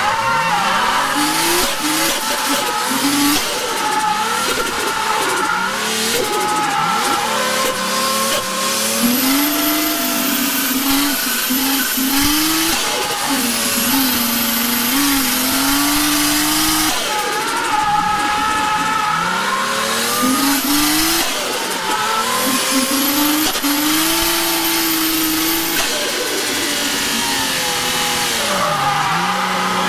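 Toyota JZX drift car's straight-six engine revving hard, its pitch swinging up and down again and again, with tyres squealing as the car drifts through corners, heard from inside the cabin. A high thin whine comes and goes for a few seconds at a time.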